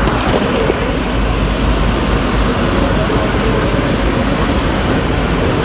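Concarril NS-88 rubber-tyred metro train running between stations, heard from inside the car: a loud, steady rumble of running gear and traction noise.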